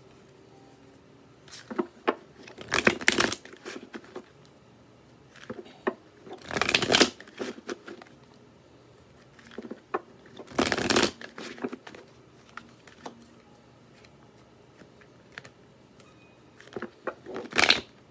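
Tarot deck being shuffled by hand, the cards riffled and flicked together in about four short bursts a few seconds apart, with quiet pauses between.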